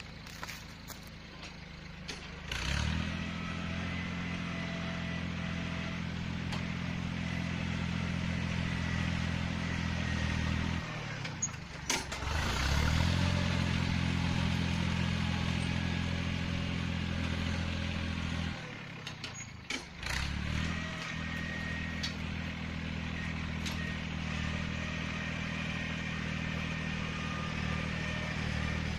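Diesel engine of a Yanmar 1145 tractor running at raised revs, its steady note stepping up a few seconds in. The engine speed dips and picks up again twice, with a few clicks before the first rise.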